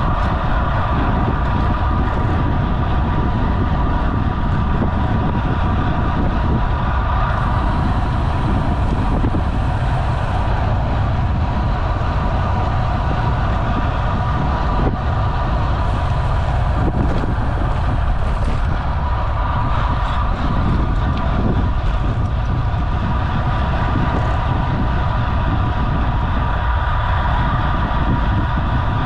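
Wind rushing over the microphone of a road bike ridden fast in a race pack, with a steady whir from the bike's tyres and drivetrain.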